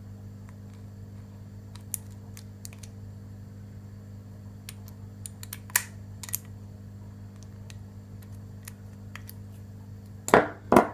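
Small scattered clicks and taps of a 7-pin tubular lock pick and a disc lock being handled, over a steady low hum, with two louder knocks near the end.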